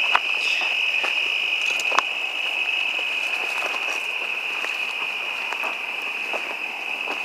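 Crickets trilling in a steady, unbroken high chorus at night, with footsteps through dry brush about once a second and two sharp clicks, one near the start and one about two seconds in.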